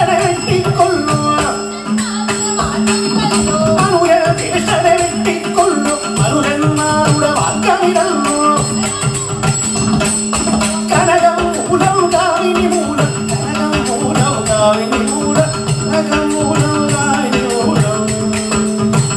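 Ottan Thullal music: singing of the verses over a steady drone, with small brass hand cymbals jingling in a fast rhythm and regular drum strokes.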